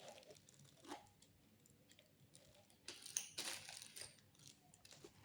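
Faint rustling and light clicks of hands handling the packaging and small plastic parts of a GoPro camera kit, busiest about three seconds in.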